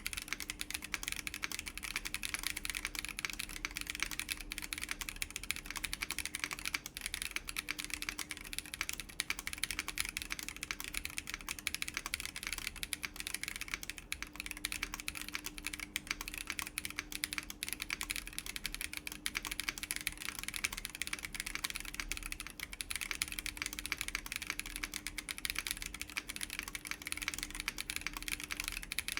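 Continuous fast typing on a Chilkey ND104 mechanical keyboard fitted with WS BigLucky Tactile switches, an FR4 plate and PBT doubleshot keycaps. The keystrokes form a dense, even stream.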